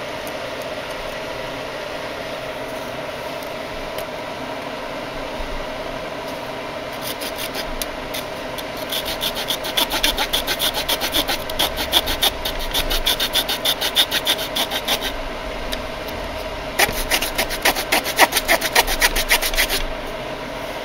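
The small folding saw blade of a Victorinox Huntsman Swiss Army knife sawing back and forth, about two to three rasping strokes a second, in two bouts with a short pause between them. A steady low hum runs underneath.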